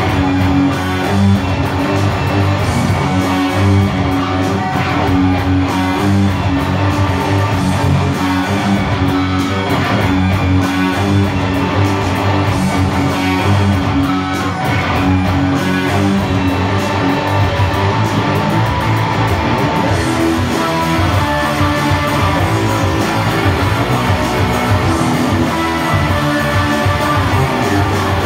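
Electric guitar music: picked electric guitar lines over a steady low bass part, continuous and loud.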